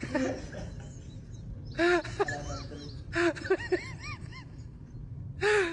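Steady low rumble inside a bus, with a few short high-pitched voice calls that rise and fall quickly in pitch, one about two seconds in, one around three and a half seconds and one at the end.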